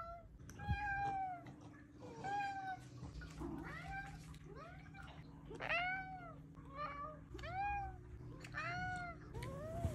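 A tabby house cat meowing over and over: about a dozen short meows in quick succession, each rising then falling in pitch.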